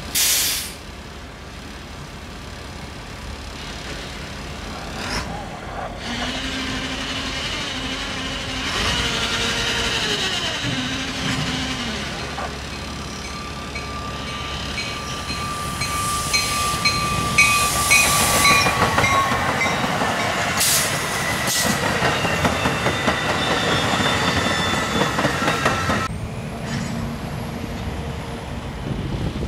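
Metra Electric Highliner electric multiple-unit commuter train approaching: several whining tones and wheel noise on the rails grow louder as it nears. The sound drops abruptly near the end.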